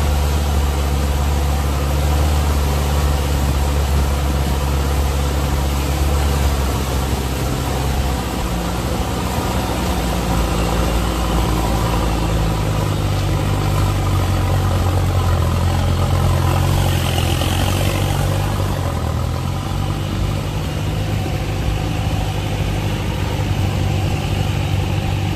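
Engine of an old open-topped four-wheel-drive vehicle running steadily while driving; the engine note changes about eight seconds in and again around twelve seconds.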